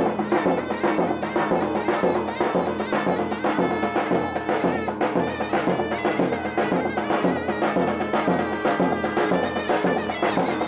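Traditional Turkish folk music: a shrill reed wind instrument playing a melody over a steady drum rhythm.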